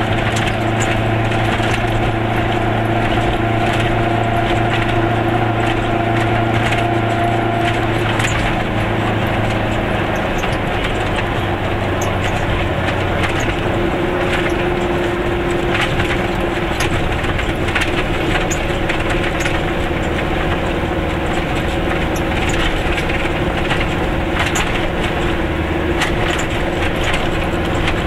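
Goggomobil's air-cooled two-stroke twin engine running under way, heard inside the small car's cabin, its drone changing pitch about eight to ten seconds in. Underneath are tyre hiss on the wet road and scattered sharp ticks and rattles.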